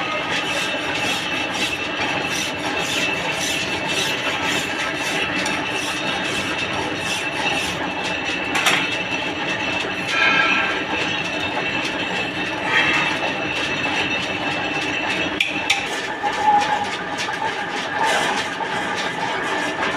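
Metal lathe running while turning a trolley axle: a steady machine noise with a high whine and rapid ticking, with a few louder knocks along the way.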